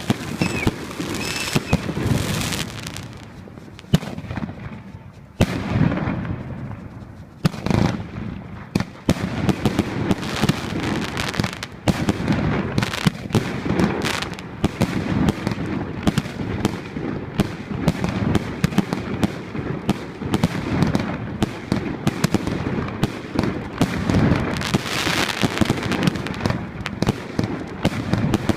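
Firework battery (cake) firing a rapid string of bangs and crackles. It thins to a few scattered reports a few seconds in, then resumes as a near-continuous barrage.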